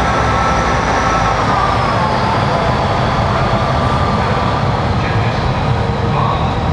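Class 158 diesel multiple unit pulling out of a platform. Its underfloor diesel engines are running under power with a steady whine, along with wheel and rail noise as the coaches and then the rear cab pass close by.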